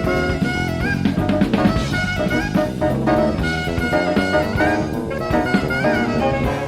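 Live jazz-fusion band playing a funky groove, with a saxophone lead over a busy drum kit, played back from a 1985 cassette tape recording.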